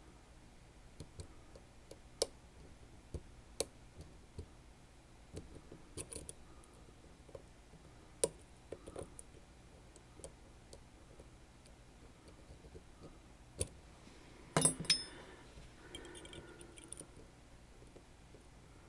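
Sparse small metallic clicks and ticks from a Sargent Keso lock and tools being handled, with a short clatter of louder clicks and brief ringing about fifteen seconds in.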